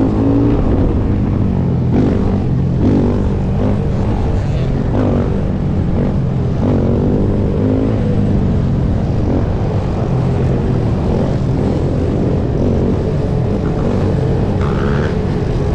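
Sport ATV engine running hard under the rider, its pitch rising and falling through the first half as the throttle is worked and gears change, then holding steadier. Other quads and dirt bikes run alongside.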